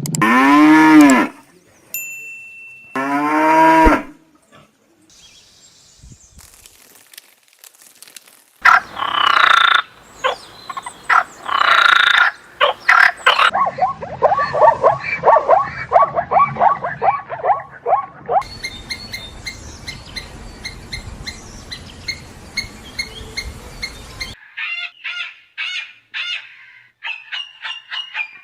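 A run of different farm animal calls, one clip after another, with cattle mooing among them: long calls at first, then a quick pulsing stretch and short high chirps near the end.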